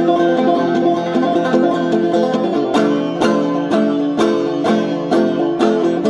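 Banjo played clawhammer style, a steady rhythmic run of struck notes, with the banjo tilted out to change the angle at which the fingers strike, his way of doing fewer percussive 'clucks'. From about halfway, sharp percussive strokes stand out among the notes.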